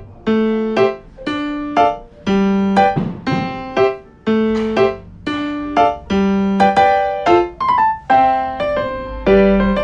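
Background piano music: a steady, light melody of short notes, about two a second.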